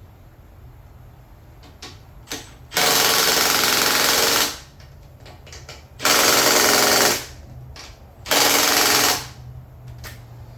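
A handheld power driver runs in three bursts of one to two seconds each, with a fast, even rattle, tightening fasteners as engine parts are bolted back on over new gaskets.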